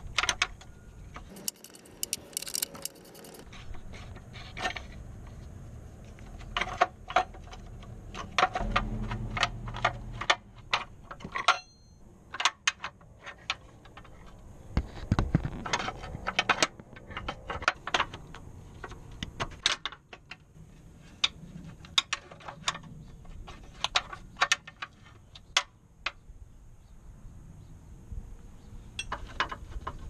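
Irregular sharp clicks, clinks and scrapes of hands and tools working the plastic fender liner and fasteners inside a car's front wheel well, to get at the battery behind it.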